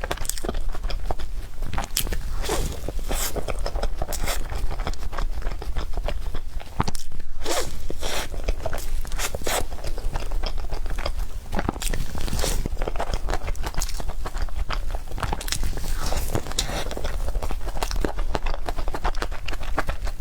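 Close-miked mouth sounds of someone eating cake: chewing with a dense run of small clicks and crackles.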